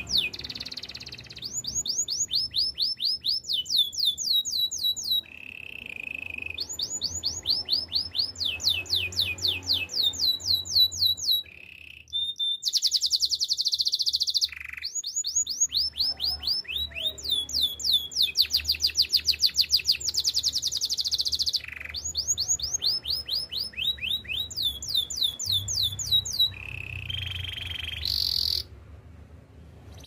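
Domestic canary singing: phrases of rapidly repeated sweeping notes, several a second, switching every few seconds to a new note or to a fast trill. It breaks off briefly about 12 seconds in and stops shortly before the end.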